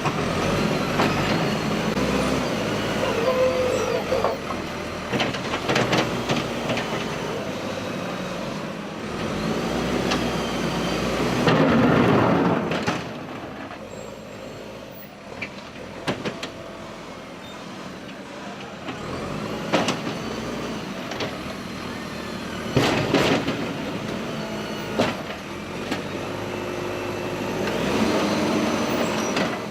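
JCB backhoe loader's diesel engine running as the machine works, with intermittent clanks and knocks and a louder surge about twelve seconds in.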